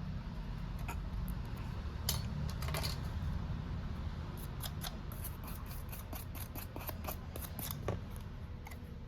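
Small hand tools clicking and snipping at a phone repair bench: scattered sharp clicks, then a quick run of light clicks in the second half, over a steady low hum.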